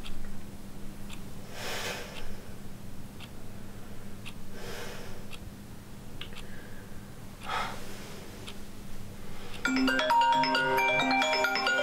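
A smartphone ringtone, a quick marimba-like melody of bright notes, starts about ten seconds in and keeps going: an incoming call. Before it, a quiet room with a low steady hum and three soft breaths.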